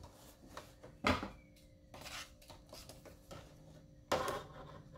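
Domestic sewing machine working slowly through thick, layered fabric: a few irregular clunks and fabric rustles over a faint steady hum, the strongest clunks about a second in and again near the end.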